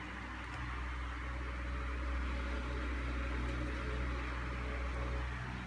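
Steady low electrical hum from a lit Hitachi F8T5 daylight fluorescent tube fixture, growing a little louder about two seconds in.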